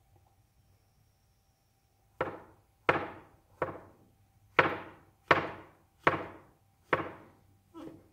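Knife chopping mushrooms on a cutting board: eight sharp knocks, about one every three-quarters of a second, starting about two seconds in.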